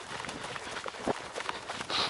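A trail runner's footsteps striking the ground in a steady running rhythm.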